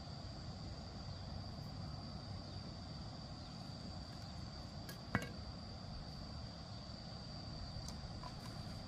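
A steady high-pitched insect drone over a low, even background rumble, with a single sharp click about five seconds in.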